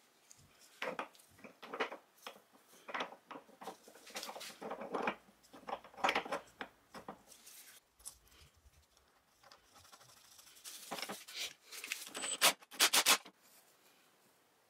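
Steel gears and parts of a Ransomes MG2 crawler gearbox being handled and fitted together by hand: scattered metal clinks, scrapes and rustling, with a quick run of four sharp clicks near the end.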